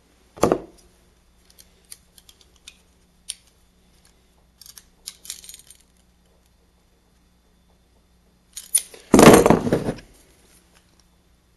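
Metal hand tools and small parts being handled at a workbench: a sharp knock about half a second in, a scatter of light clicks and clinks, then a louder rattling clatter near the end.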